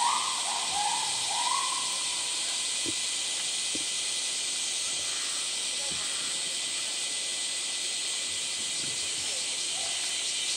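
A chorus of summer cicadas keeps up a steady, high droning hiss, with a few short rising calls in the first two seconds.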